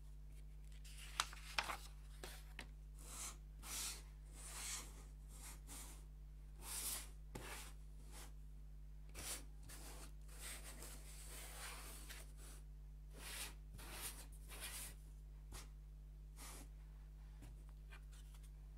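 Faint, intermittent scratching and rustling from laser-cut plywood puzzle sheets and pieces being handled, with two sharp clicks about a second in. A steady low electrical hum runs underneath.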